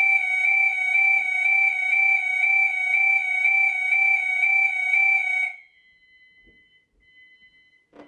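Gent fire alarm sounders going off in alarm with a loud, steady tone; it is set off by a manual call point. The tone cuts off suddenly about five and a half seconds in.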